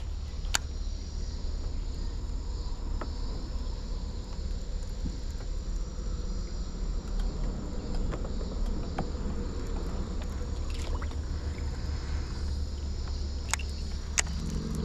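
Steady chirring of insects over a low, even rumble, with a few sharp clicks, one about a second in and a couple near the end.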